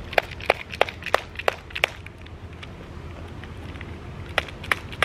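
A run of sharp clicks, about three a second for the first two seconds, then a few more near the end, over a steady low hum.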